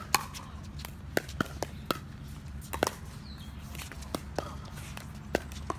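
Pickleball paddles striking a perforated plastic ball in a fast rally: a series of sharp pocks at irregular intervals, some coming in quick pairs, over a steady low rumble.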